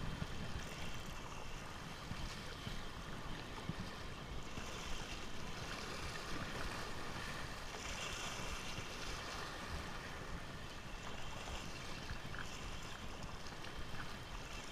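Shallow sea water lapping and sloshing steadily, with light wind noise.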